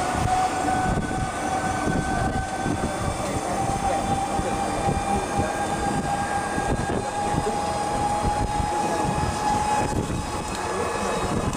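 Open-sided electric tourist cart driving along, its motor whining steadily and creeping up in pitch as it gathers speed, over road rumble and wind buffeting the microphone; the whine fades about ten seconds in.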